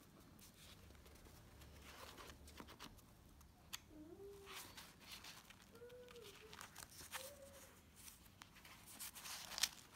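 Faint rustling and flipping of loose planner pages, paper brushing and crinkling under the hands in short strokes, the sharpest one near the end. Three faint, short pitched sounds in the background around the middle.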